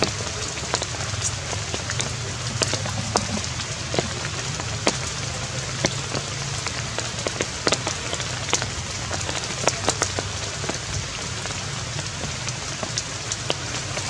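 Rain or water drops pattering on wet leaves and forest leaf litter: a steady hiss with many sharp, irregular drop hits.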